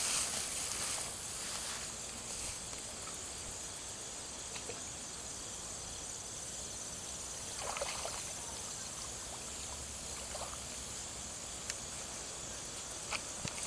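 Steady, high insect trilling over quiet outdoor ambience at a pond edge, with a short splash of water about eight seconds in as the bass is let back into the pond.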